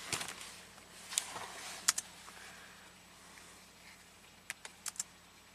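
A few short, sharp clicks of handling equipment, about seven in all, some in quick pairs and a cluster of three near the end, over a low background.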